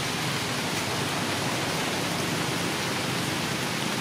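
A steady, even hiss of outdoor background noise with no distinct events in it.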